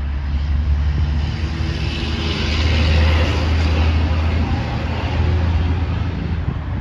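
A motor vehicle passing on the road, swelling to its loudest about three seconds in and then fading, over a steady low rumble of wind on the microphone.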